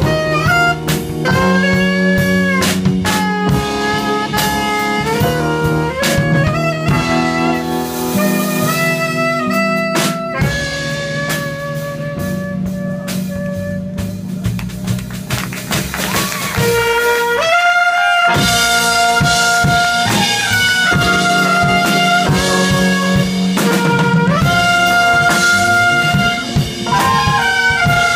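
Small jazz combo playing live: a saxophone carries the melody over drums, and a trumpet joins it partway through. The band gets louder about two-thirds of the way in.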